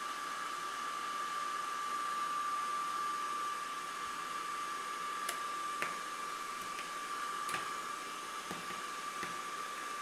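Steady hiss with a constant high tone underneath, and a few faint clicks from about five seconds in as cable plugs are pulled from and pushed into a laser engraver's handheld controller.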